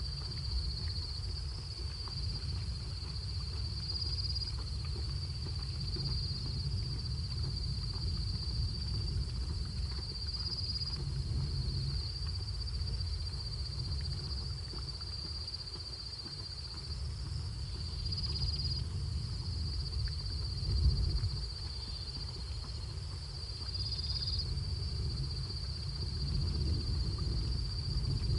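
Steady high-pitched chorus of night insects, shifting slightly in pitch now and then, over a constant low rumble, with one short low thump about two-thirds of the way through.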